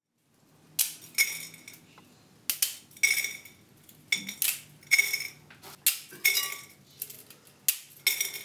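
Cutlery and dishes clinking: a string of sharp, irregular clinks with a bright ring, about two a second, starting about a second in.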